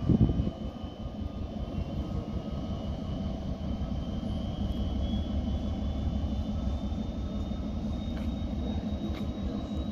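A locomotive-hauled train rolling slowly past: a steady low rumble of locomotive engines and wheels from an HLD 77 diesel, an HLE 27 electric locomotive and double-deck coaches, with a faint high whine slowly rising in pitch. The rumble is loudest briefly right at the start.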